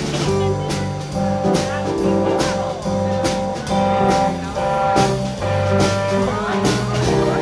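Live blues band playing, with keyboard, guitar, bass and a drum kit keeping a steady beat under held keyboard notes.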